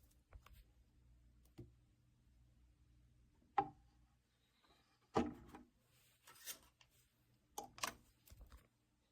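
Faint low hum from an all-in-one record player between records, broken by a few irregular clicks and knocks, the loudest about three and a half, five and seven and a half seconds in.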